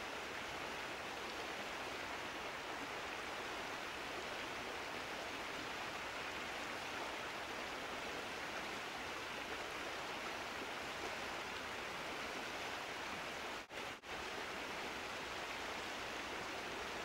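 Steady, even rushing hiss with no distinct sounds in it, dropping out twice for an instant about three seconds before the end.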